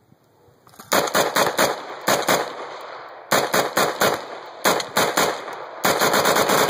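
AR-15 with a Spikes Tactical gas-piston upper firing 5.56/.223 rounds in rapid strings of shots, about five quick volleys of several shots each, starting about a second in. This is test-firing of the newly built upper.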